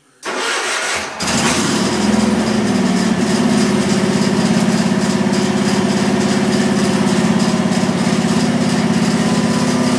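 1982 Wheel Horse C-195 garden tractor's engine starting: it cranks briefly, catches about a second in, then runs loud and steady.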